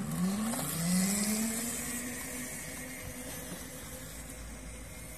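A 3000 W 72 V brushless-motor electric go-kart pulling away in its low-speed setting: the motor and chain drive whine, rising in pitch over the first two seconds, then holding steady and fading as the kart moves off.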